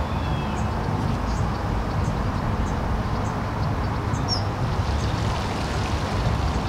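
Steady low outdoor rumble, with a few faint high chirps, like birds, over it.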